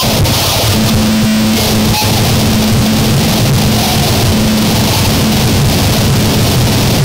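Harsh noise music: a loud, dense wall of noise and churning low rumble. A steady low drone is held from about a second in until shortly before the end.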